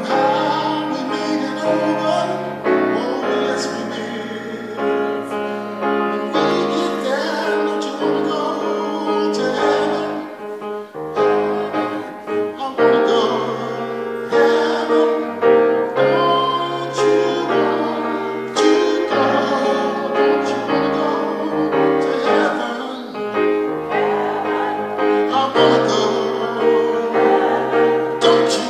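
A man singing into a microphone while accompanying himself on a grand piano, with held chords changing every second or two under the sung line.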